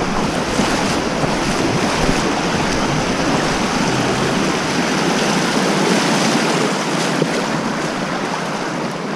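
Creek water rushing steadily over a fast riffle, a loud continuous rush.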